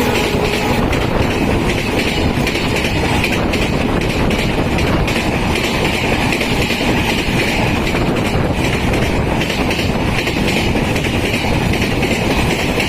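Express passenger train passing at full speed: a steady, loud rush of wheels on rail with rapid clickety-clack over the joints and a constant high hiss. The tail of a horn blast fades out in the first half second.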